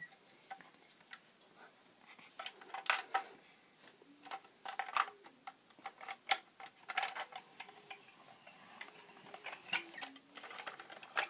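Irregular small clicks and taps of hard plastic as toy figures are fitted into a plastic toy van and the van is handled.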